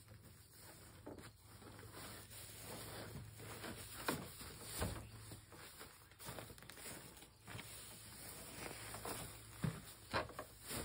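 Dry hay rustling and scraping as small square hay bales are handled and set in place, with a few soft thumps.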